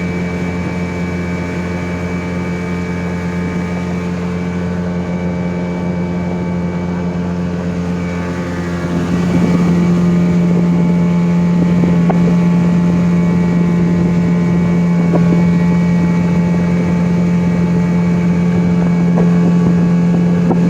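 Small boat's outboard motor running steadily, with a steady engine hum that grows louder about nine seconds in.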